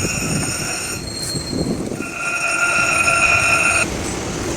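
A steady, high-pitched metallic squeal at several fixed pitches over a low rumble. It sounds in two stretches, stops about a second in, returns a second later and cuts off suddenly near the end.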